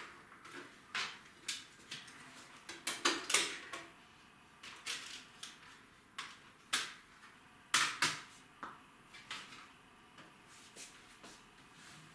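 Scattered clicks and light knocks of a plastic CD case being handled and opened at a countertop stereo, with a cluster of louder clicks about three seconds in and again about eight seconds in.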